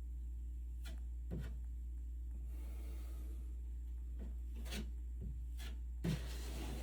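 Scattered scrapes and rubbing strokes of a hand tool working a drywall ceiling during a tape-and-compound repair, with a sharper knock about six seconds in, over a steady low hum.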